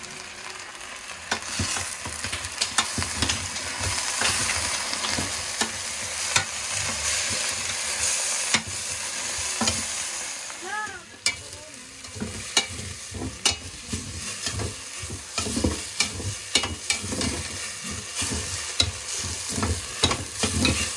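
Chicken pieces and sliced onions sizzling in a Saladmaster stainless steel pot while a metal spoon stirs and scrapes them. Sharp clacks of the spoon against the pot come more often in the second half.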